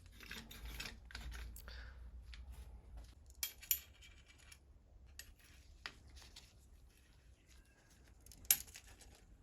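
Faint metallic clicks and clinks of tools and brake parts being handled while fitting bicycle brake calipers, with a pair of sharper clicks about three and a half seconds in and another near the end.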